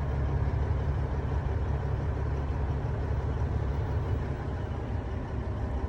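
Combine harvester running steadily at work: a heavy, continuous engine and machinery drone.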